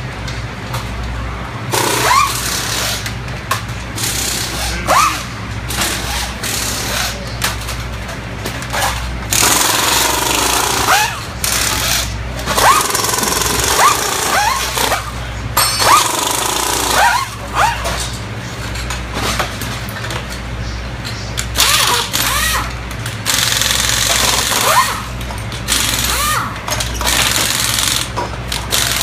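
Pneumatic impact wrenches rattling in repeated short runs, each with a rising whine as the tool spins up, loosening bolts during a Top Fuel dragster engine teardown. A steady low hum runs underneath.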